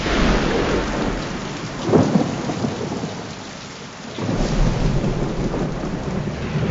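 Heavy rain pouring during a thunderstorm. A sharp thunderclap comes about two seconds in, the low end then thins out briefly, and deep rumbling thunder returns after about four seconds under the rain.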